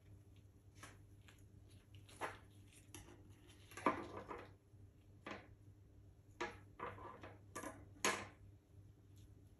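Sheet of edible metallic paper crinkling as gloved fingers fold and handle it: a run of short crackles, the sharpest about four and eight seconds in.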